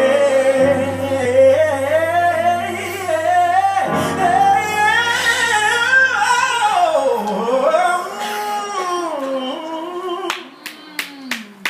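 Live gospel song recording playing: a vocalist sings long, melismatic lines that swoop up and down in pitch over a held low bass note. Near the end the singing thins and a few sharp knocks come through.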